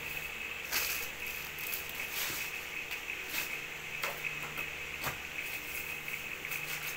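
Packaging wrap being handled, rustling and crinkling in a string of short crackles, over a steady faint high whine.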